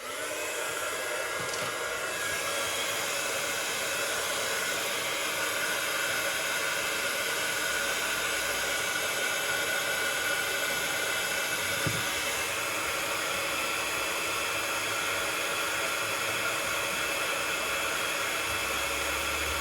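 Hot-air gun blowing steadily, heating the phone's vibration motor and earpiece speaker to soften the adhesive underneath. It switches on at the start.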